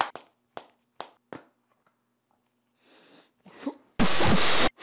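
A man sniffing at his armpit, then letting out a loud, harsh sneeze-like burst about four seconds in that lasts under a second and stops abruptly. A few faint clicks come in the first second and a half.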